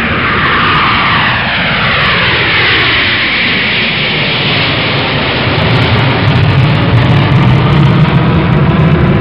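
Twin-engine jet airliner taking off at full power: a loud jet roar with a whine that falls in pitch as the plane passes and climbs away. A deeper rumble grows louder in the second half.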